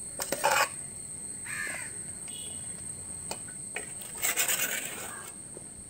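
Steel spoon scraping sticky boondi ladoo mixture across a steel plate and the inside of an aluminium vessel: a few short rasping scrapes with light metal clinks. The longest scrape comes about four seconds in.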